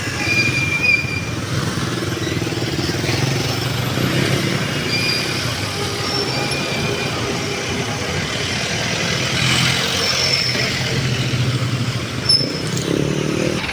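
City road traffic: vehicle engines running steadily, with motorcycles and cars passing, and a few short high-pitched squeaks scattered through it.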